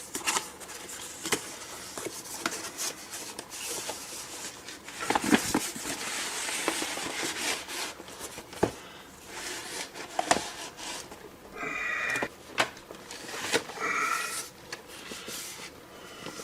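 Cardboard shipping box and its packing being handled and opened: scattered clicks and knocks, a stretch of rustling about five seconds in, and two short squeaks in the second half.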